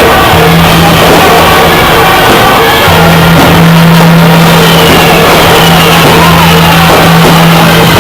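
Loud, distorted music with a steady held low note under a dense, noisy wash.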